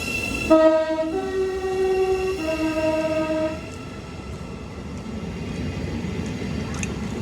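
Train horn sounding a two-tone blast in three notes, low, high, low, for about three seconds, followed by the steady rush of the train running past.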